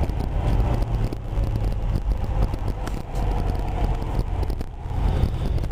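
Road and engine noise heard from inside the cabin of a moving Toyota 4Runner SUV: a steady low rumble with tyre hiss.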